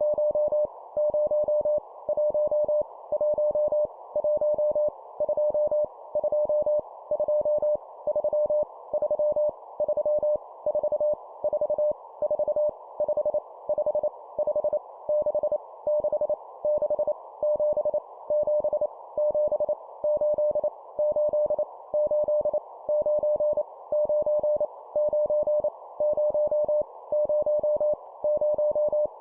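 Morse code (CW) practice tone sent at 25 words per minute: a single steady mid-pitched tone keyed rapidly into dots and dashes inside a narrow band of hiss. It sends numbers, each repeated three times, with short pauses between groups.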